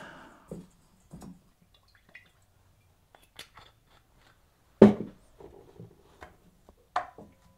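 Quiet kitchen handling sounds at a stainless steel bowl: a faint pour of olive oil, scattered small clicks, and a single sharp knock about five seconds in as zucchini sticks go into the bowl, with another smaller knock near the end.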